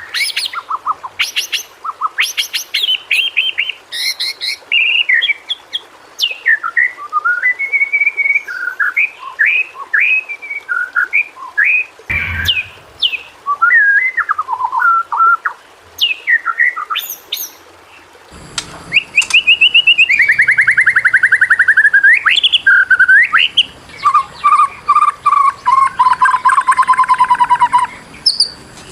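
White-rumped shama (murai batu) singing a long, varied song of clear whistles, sharp calls and rapid trills. About two-thirds of the way through, the recording switches to a noisier background with fast rattling trills.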